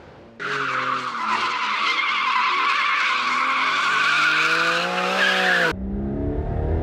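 Tyres squealing as a Porsche 718 Cayman GTS 4.0 slides through a corner, with its naturally aspirated 4.0-litre flat-six rising in pitch underneath. The squeal starts about half a second in and cuts off suddenly near the end, leaving the louder engine note, still rising as the car accelerates.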